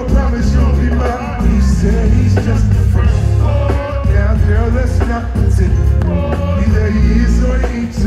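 Music with a singing voice over a heavy, steady bass line.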